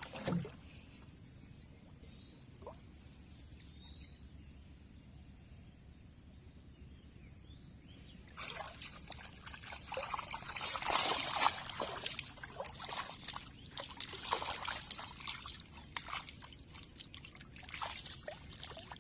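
Water splashing and trickling in irregular bursts, starting about eight seconds in and loudest around eleven seconds. Before that there are only a few faint short chirps over a steady high-pitched tone.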